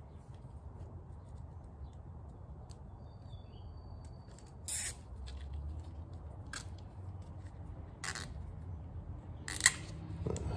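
Plastic zip ties being pulled and ratcheted tight around a corrugated wire loom: a handful of short zipping bursts, the loudest about five seconds in and again near the end.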